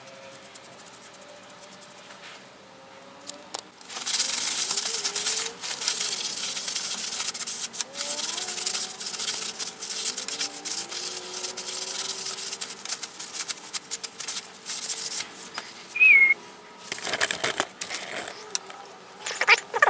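A hand rubbing oil finish over a rough, bark-covered wooden root: a scratchy scrubbing hiss made of many uneven strokes. It starts about four seconds in and breaks into a few separate rubs near the end.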